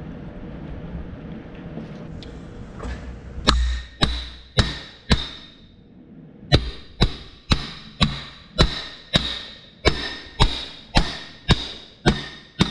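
A hammer striking steel in a steady run of ringing blows, about two a second: four blows, a short pause, then about a dozen more.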